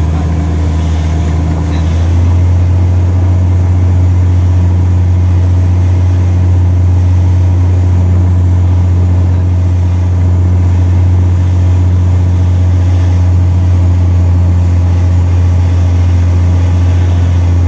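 Cessna 182RG's six-cylinder piston engine and propeller droning steadily, heard inside the cabin on final approach. The drone grows a little louder about two seconds in, then holds steady.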